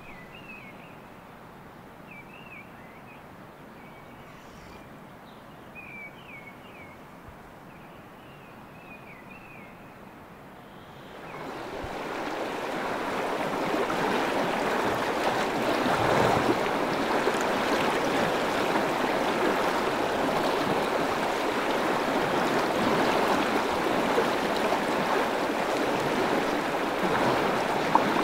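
A few small bird chirps over quiet outdoor air, then the rush of fast-flowing water fades in about eleven seconds in and runs on steadily: a spring meltwater stream running high over the forest floor.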